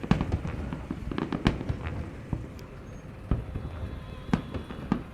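Fireworks display: a quick run of bangs and crackling shell bursts for about two seconds, then single bangs roughly a second apart.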